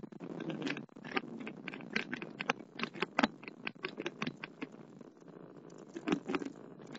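Rapid, irregular clicking and rattling inside a car's cabin as it coasts down after an autocross run; the engine's steady note drops away about a second in.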